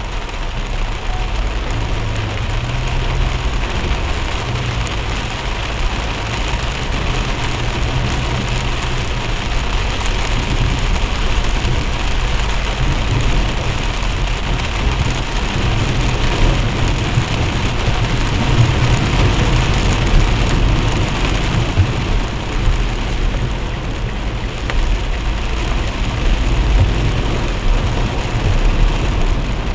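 Heavy rain pouring down steadily over a continuous low rumble.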